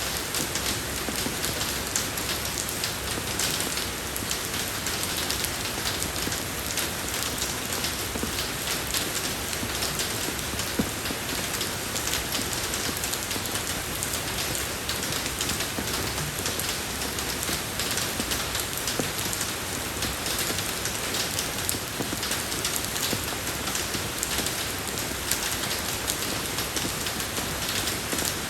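Steady rain falling on a road surface, a constant hiss full of fine drop patter.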